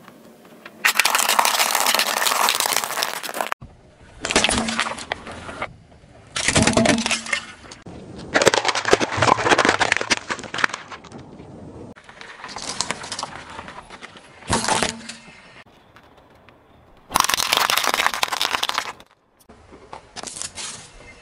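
A car tyre rolling over and crushing small brittle objects, such as a row of dry pasta tubes and hard-shelled candies. It gives a series of separate crunching and cracking bursts, each one to three seconds long, cut one after another.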